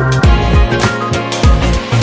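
Background music with a steady electronic beat: a kick drum about twice a second under bass and synth notes.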